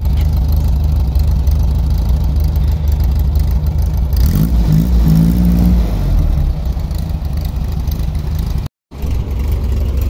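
Volkswagen Fusca's air-cooled flat-four engine idling steadily, with a brief rise and fall in engine speed about four seconds in. The sound breaks off for a moment near the end.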